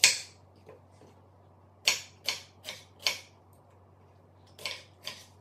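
Chef's knife chopping a red onion on a wooden chopping board: sharp knocks of the blade on the board, one at the start, a quick run of four about two seconds in, and two more near the end.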